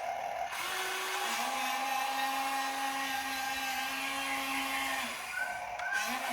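Small electric motors of an RC excavator whining as it works, a steady hum whose pitch steps down about a second in and breaks off near the end.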